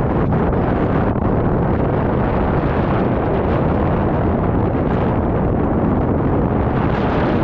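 Wind buffeting a GoPro's microphone, a steady rumble from the airflow of a paraglider in flight.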